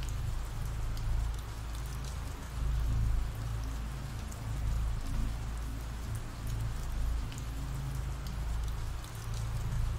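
Steady rain falling, a dense patter with scattered drop ticks over a low rumble.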